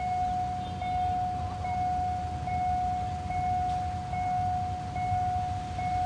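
Level-crossing warning signal sounding with the barriers down: a steady high tone with a short chime repeating a little more than once a second, over a low rumble.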